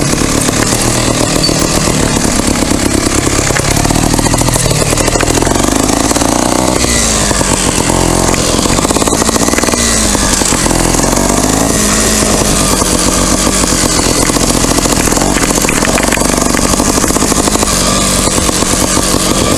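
Off-road trail motorcycle engine running as the bike is ridden over a rough, rocky dirt track. The revs rise and fall again and again with the throttle.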